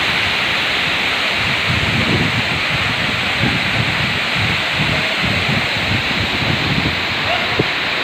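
A tall waterfall plunging into its pool: a steady, loud rush of falling water. Irregular low rumbles of wind buffet the microphone under it.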